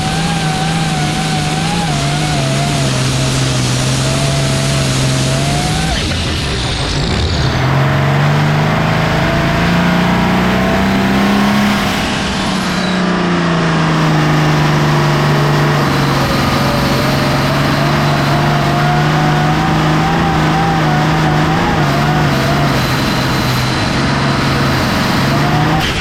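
A 466 hot farm pulling tractor's diesel engine running loud at high revs. Its pitch dips about six seconds in, climbs to a peak around twelve seconds, then falls back and holds steady.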